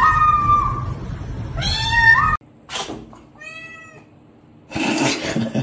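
Ginger kitten meowing in two long, siren-like wails, the second rising in pitch and cut off suddenly. Then a single shorter cat meow, and a brief rush of noise near the end.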